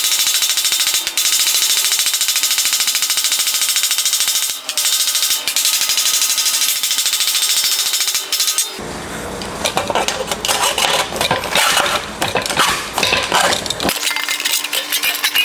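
Sheet steel being hammered in a very fast run of sharp metallic blows to stretch it. About nine seconds in, the blows turn rougher and more irregular.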